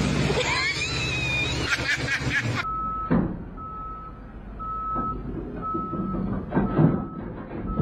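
A truck's reversing alarm beeping steadily, one short tone about once a second, with a few heavy knocks and thuds from the truck, the loudest near the end.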